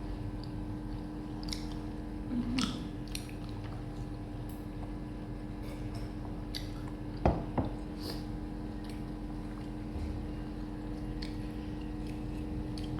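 Eating sounds: soft wet chewing and mouth clicks over a steady hum. A sharp knock comes twice in quick succession about seven seconds in.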